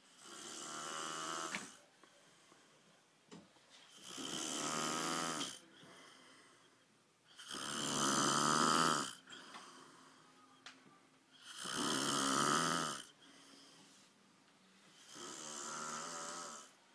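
A person snoring loudly in sleep: five long snores, one every three and a half to four seconds, with quiet breaths between them. The third and fourth snores are the loudest.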